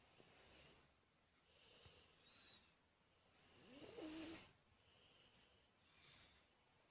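Faint, quiet breathing of a sleeping child, soft breaths coming every second and a half to two seconds. The loudest breath, about four seconds in, carries a brief snuffling tone. There is no heavy snoring: the child breathes more easily and sleeps calmly.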